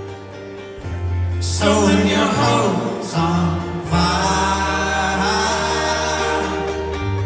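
Live folk-rock band playing, with several voices singing together over sustained bass and string instruments from about a second and a half in.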